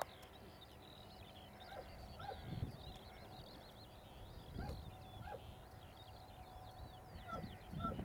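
Songbirds twittering continuously, a quick run of short high chirps and trills with a few lower calls among them. Gusts of wind rumble on the microphone now and then, about two and a half, four and a half and eight seconds in.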